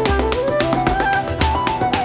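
A traditional Irish reel played on flute with guitar backing, with the quick, rhythmic tapping of hard-soled leather shoes dancing sean-nós steps on a hard floor.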